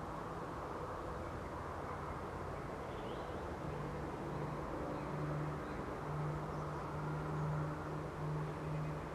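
A distant engine droning, its steady hum setting in about four seconds in and growing louder, over a low background rumble, with a few faint bird chirps.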